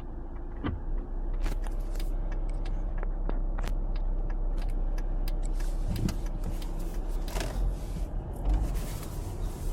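Volvo V70 D4 diesel accelerating hard with its automatic gearbox in sport mode: a steady low engine and road rumble, with many sharp clicks and knocks scattered through it.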